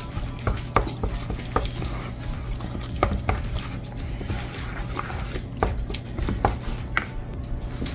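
Spoon stirring waffle batter in a mixing bowl, with irregular clinks and taps of the utensil against the bowl.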